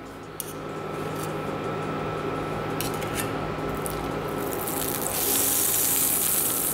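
Butter sizzling as it melts into hot olive oil in a stainless steel frying pan. The sizzle starts as the butter goes in and grows louder about five seconds in, with a couple of light clicks of a utensil against the pan.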